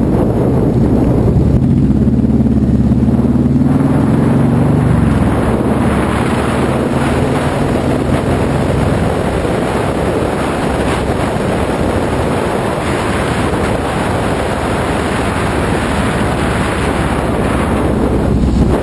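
A vehicle's engine running, its note rising briefly about four seconds in, then heavy wind rush on the microphone that covers the engine while the vehicle drives on down the road.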